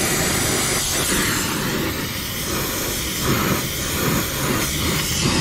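Oxy-acetylene torch flame hissing steadily while heating a copper refrigerant line joint for brazing, with some uneven fluttering in the middle.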